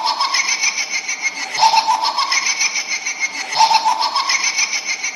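A burst of rapid, pulsing laughter played as a loop, repeating in the same shape about every two seconds.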